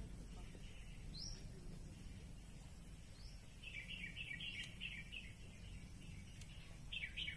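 Small birds chirping: a few single short rising chirps, then a quick run of repeated chirps in the middle and another cluster near the end, over steady low outdoor background noise.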